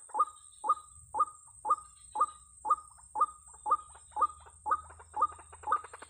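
White-breasted waterhen (ruak-ruak) calling: a steady series of short, loud notes, about two a second, edging slightly faster near the end.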